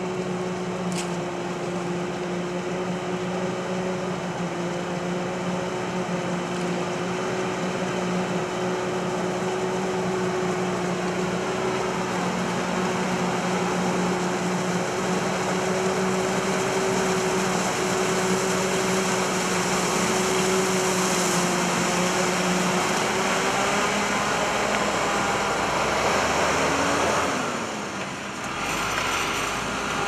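A self-propelled Claas Jaguar forage harvester runs steadily, with a constant machinery drone and hum, as it chops silage maize and blows it through its spout into a silage truck driving alongside. Near the end the hum shifts, the sound dips briefly, and the truck's trailer passes close by.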